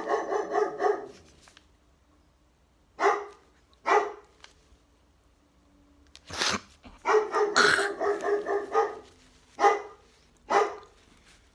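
A large dog barking repeatedly in bouts: a quick run of barks at the start, single barks about three and four seconds in, another run from about six to nine seconds, then two more single barks.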